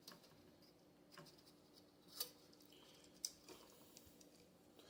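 Near silence broken by about six faint, short clicks and taps from handling the CPU cooler's metal mounting parts; the loudest comes about two seconds in.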